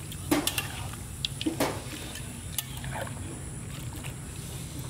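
A few sharp knocks and clinks at irregular moments, over a low steady hum.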